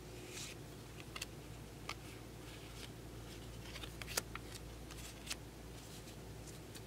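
Trading cards being handled and flipped through: soft slides and rustles of card stock with scattered sharp clicks of card edges, the sharpest about four seconds in and another about a second later.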